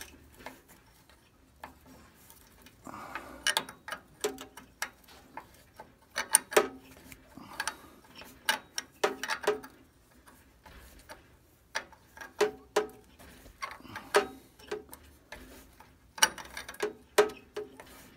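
Hand wrench working a long, rusted bolt that holds the brake cable on a rear axle: short runs of quick light metal clicks every couple of seconds, with quiet gaps between strokes.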